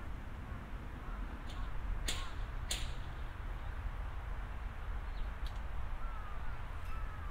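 Steady outdoor background rumble. About two seconds in come two sharp clicks or knocks, about half a second apart, and a few faint short high chirps are heard near the end.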